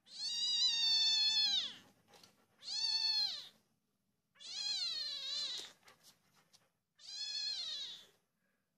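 Kitten mewing: four long, high meows about two seconds apart, each rising and then falling in pitch.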